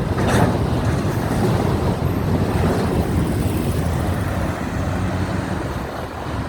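Steady low rumble of a diesel train running past, with no horn sounding.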